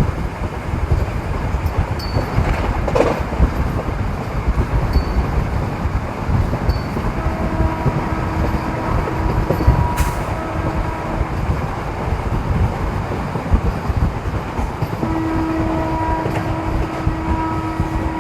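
MEMU electric multiple-unit train running, a steady heavy rumble of wheels on track. A held pitched tone sounds twice over the rumble, about seven seconds in and again near the end.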